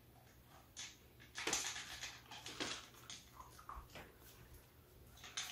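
Scattered faint clicks and rattles of a plastic dog puzzle feeder as a poodle puppy noses and paws at its sliding covers to get at kibble. The loudest clicks come about a second and a half in and again near the end.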